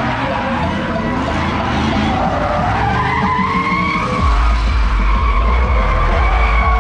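Drift cars sliding round the track: tyres screeching while their engines rev high, the pitch climbing partway through. A deep rumble joins about four seconds in.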